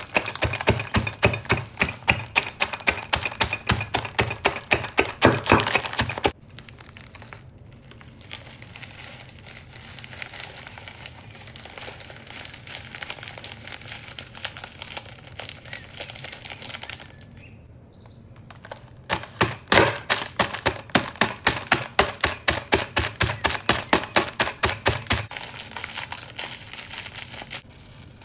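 A wooden rolling pin pounding packaged biscuits inside their plastic wrapper on a hard worktop to crush them: quick, even blows at about four or five a second, with the wrapper crinkling. There are two long runs of pounding, one at the start and another from about two-thirds of the way in, with quieter rustling of the packet between them.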